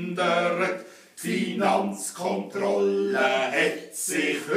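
Men's voices singing a Schnitzelbank verse in Swiss German, with held notes and a short break between lines about a second in.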